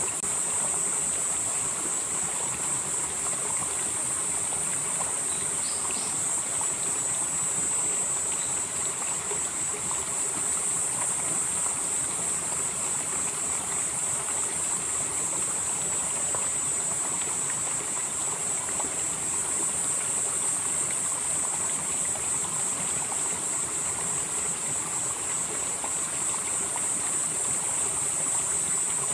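Mountain stream flowing steadily over rocks, with insects droning on one high, steady pitch over the water.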